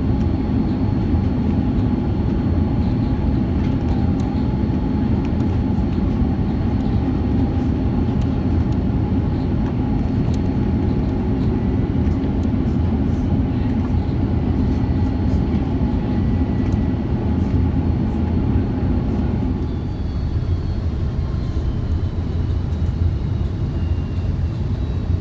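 Airbus A330 cabin noise in flight: a steady engine and airflow drone with a hum. About 20 seconds in, the drone eases and a high whine falls in pitch as the engines spool down.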